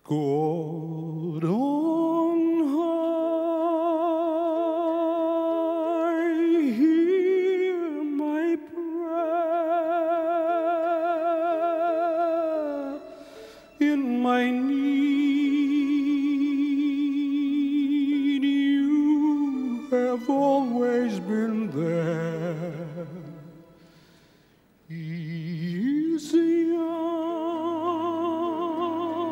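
Music: a slow melody of long held notes with wide vibrato, sung without words. The melody breaks off briefly twice.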